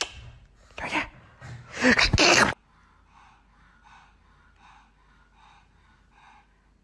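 A pug's noisy breathing: two loud rasping snorts or gasps in the first two and a half seconds, then faint rhythmic breaths, about three every two seconds.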